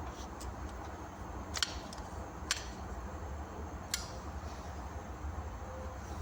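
A steady low rumble with three sharp clicks, the first two about a second apart and the third a second and a half later.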